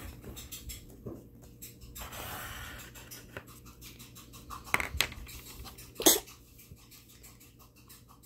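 Graphite pencil drawing lines on a sheet of paper on a table, with the paper handled and shifting, and a few sharp clicks about halfway through.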